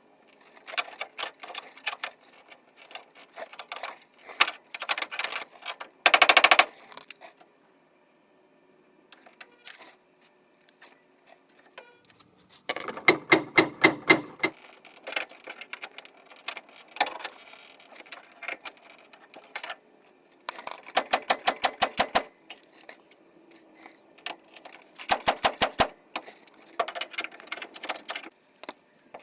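Power impact tool, such as an impact wrench, hammering in several short bursts of rapid clicks, with quieter clicking and tapping between them.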